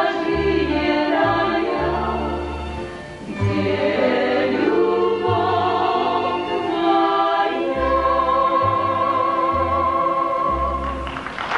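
Women's choir singing a Polish Kurpie folk song over sustained low bass notes, ending on a long held note; a burst of applause breaks out right at the end.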